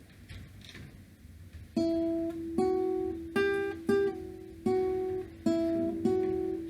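Background music on acoustic guitar: single plucked notes, each fading, beginning about two seconds in after a quiet start.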